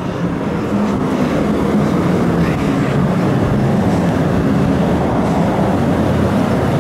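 Loud steady drone of a large ventilation fan: a low hum under an even rushing noise, stepping up a little less than a second in.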